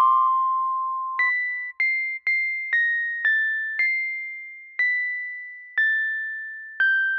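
Background music: a slow melody of single struck notes, each starting sharply and fading, about one to two notes a second, with the notes spacing out to about one a second in the second half.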